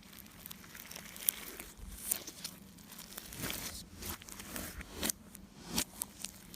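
Slime being handled and squeezed, giving irregular crackling pops and clicks with short sticky smears of sound.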